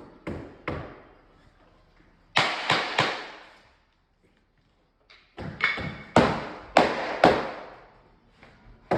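Sharp knocks on timber floorboards being fitted onto a concrete slab, in uneven groups: a couple near the start, three loud ones about two and a half seconds in, and a run of about five more from five and a half seconds on.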